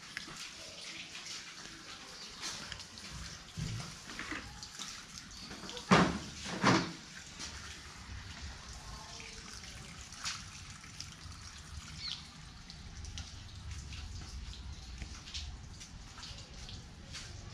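Water trickling and dripping, with two sharp knocks about six seconds in.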